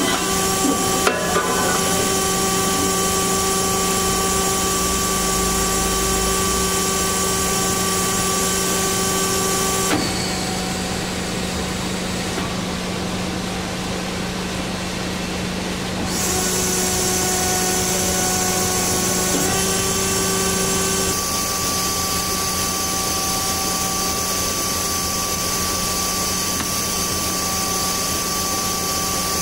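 DoAll C4100NC horizontal band saw running through an automatic cycle: a steady mechanical hum with several held whining tones and a high hiss. The sound drops and thins between about 10 and 16 seconds, then picks up again and shifts once more a little after 20 seconds.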